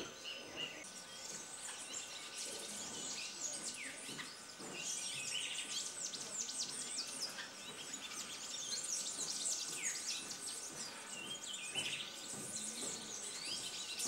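Many birds calling together, mostly quick, high, down-slurred notes in a busy overlapping chorus, over a steady insect hum.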